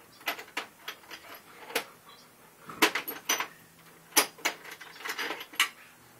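Irregular sharp metallic clicks and clatters of hand tools being picked up and knocked together, about a dozen strikes, the loudest about three and four seconds in.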